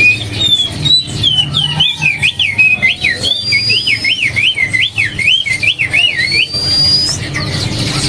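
Songbirds singing: a fast run of up-and-down whistled notes, about three a second, for several seconds, with longer rising whistles over it midway and again near the end.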